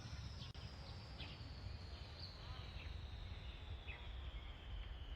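Faint outdoor ambience: scattered short, high, falling bird chirps over a steady low rumble.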